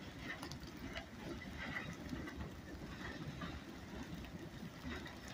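Freight train of trash cars rolling past at a distance: a low, steady rumble with scattered light clicks.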